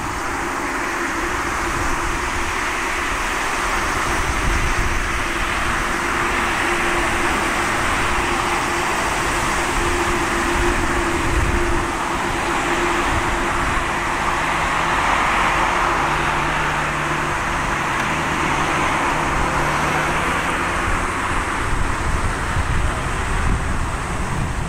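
Jet airliner engines running: a steady rushing noise with a faint hum, swelling a little around the middle.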